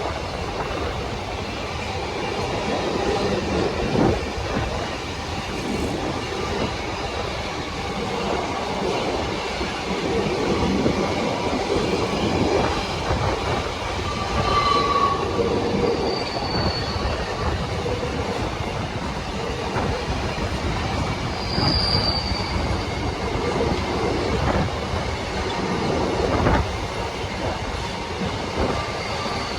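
Empty freight wagons of a long train rolling past: a steady rumble of wheels on rail, with occasional knocks and a few brief high wheel squeals.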